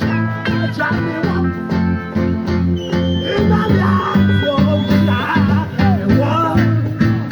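Live band music: guitar over a bass line that moves in steady steps, with curving melodic lines above.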